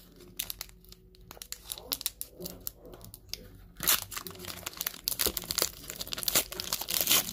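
Foil wrapper of a Pokémon TCG booster pack being torn open by hand and crinkled, with quick crackles throughout and a louder tear just before four seconds in.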